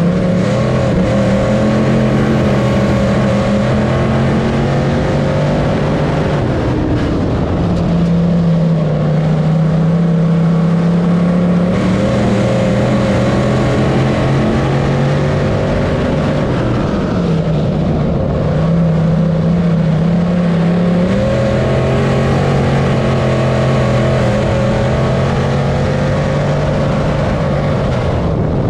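Onboard sound of a dirt track modified's GM 602 crate small-block V8 running hard in a race. The engine note drops and climbs back up several times as the car goes on and off the throttle around the track.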